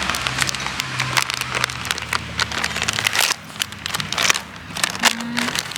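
Plastic snack bag crinkling as it is handled, a rapid run of sharp crackles.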